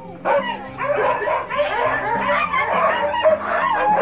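A team of harnessed sled dogs barking, yipping and whining all at once, many voices overlapping. This is the excited clamour of a dog team eager to pull before a run.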